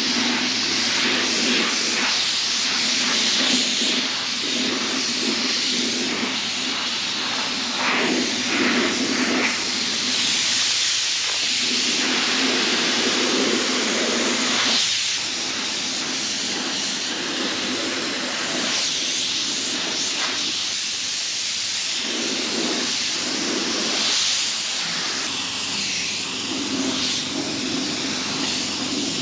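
Gravity-feed automotive paint spray gun hissing as compressed air atomises base coat onto steel wheels, in long spraying passes with brief pauses where the trigger is let off.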